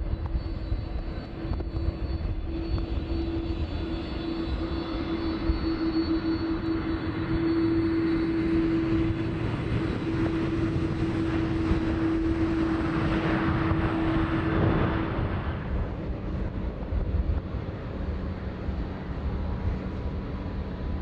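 Jet airliner engines at an airport: a steady drone with a strong hum that swells as a jet passes on its takeoff roll about 13 to 15 seconds in, its pitch dropping as it goes by. Then a quieter, lower hum from taxiing jets.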